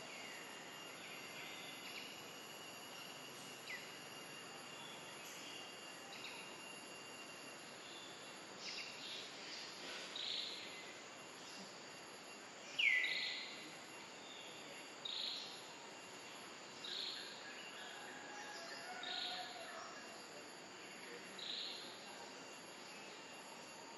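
Forest ambience: a steady high insect drone with a run of short, high calls about every two seconds from about a third of the way in. The loudest call is a falling one near the middle.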